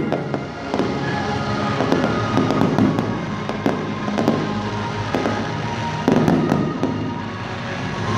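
Aerial fireworks bursting: a rapid run of sharp pops and crackles, with a louder bang about six seconds in, over music playing along.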